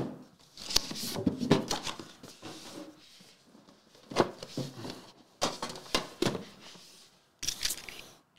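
Cardboard and plastic packaging of a trading-card box being handled and opened: several short bursts of rustling, scraping and small knocks with pauses between, as the outer box comes off the tin and the inner card box is lifted out.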